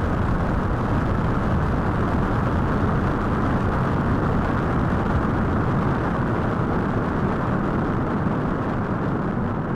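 Rocket-launch sound effect: a loud, steady, deep rumble that holds unchanged throughout.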